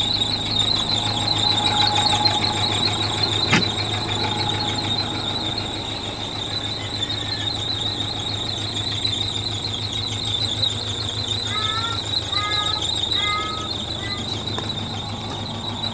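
Truck's electrical warning buzzer sounding continuously: a high steady tone with a fast flutter, over a low steady hum.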